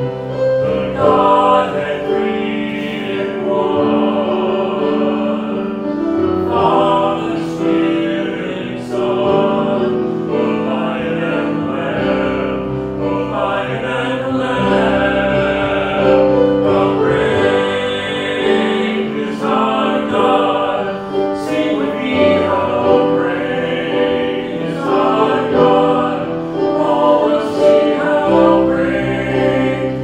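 Church hymn singing: many voices sing together, led by two men, in long held notes.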